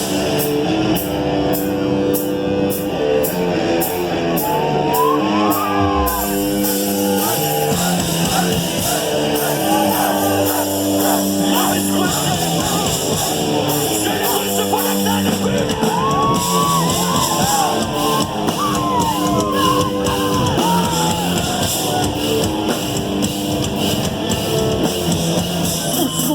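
Rock band playing live, with singing over held chords. An even ticking beat runs for about the first six seconds, then stops.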